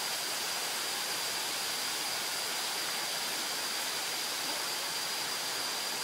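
Steady rush of falling water from a waterfall, an even hiss with no breaks.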